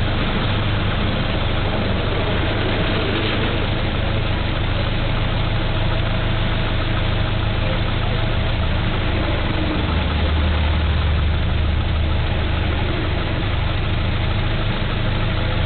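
Ford Model T's four-cylinder engine running steadily at low road speed, heard from inside the open car. About ten seconds in, the low hum gets stronger for a couple of seconds.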